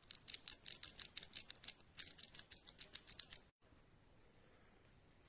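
Plush dog toy's crinkle material crackling in a quick run of crisp rustles, about five or six a second, which stops abruptly a little over three seconds in.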